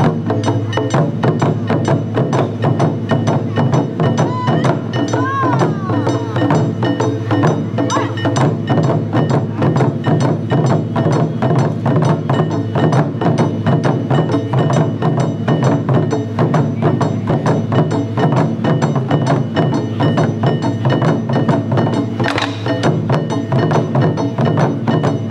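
Japanese taiko drum ensemble playing a fast, steady, unbroken rhythm: deep barrel-drum strokes with sharp, high, clicking hits over them. A single sharp, bright accent stands out near the end.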